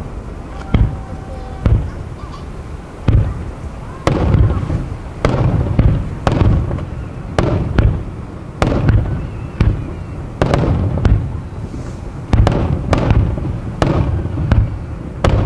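Aerial firework shells bursting one after another, a little more than one sharp bang a second, each trailing off in a rolling echo.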